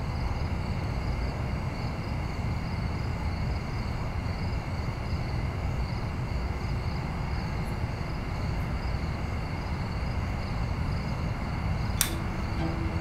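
Steady low rumbling noise, with a single sharp click near the end.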